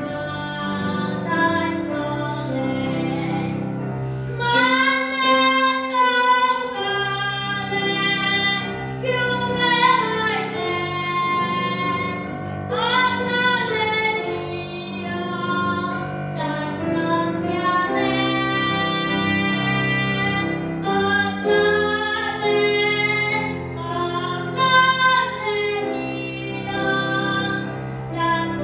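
A boy singing solo, accompanied on grand piano.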